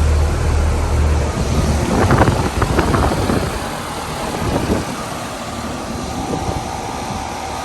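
Carrier Comfort Series heat pump outdoor units running, with compressor hum and fan air noise. A strong low hum fades out after about two seconds, and a steadier tone comes in later.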